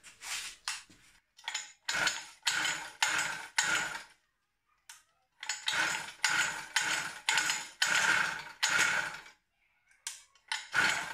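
Recoil pull-starter of a Samurai 40cc two-stroke pocket-bike engine being yanked in a string of short, quick pulls, about two a second, in two runs with a pause between: the engine is being pull-started.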